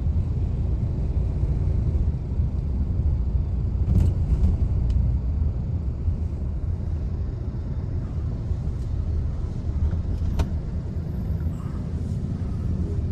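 Steady low rumble of a car being driven, heard from inside the cabin: road and engine noise, with a few faint clicks.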